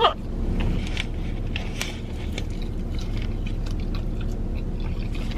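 A person chewing a mouthful of bacon cheeseburger close to the microphone, with small wet clicks and squelches from the mouth, over a steady low hum.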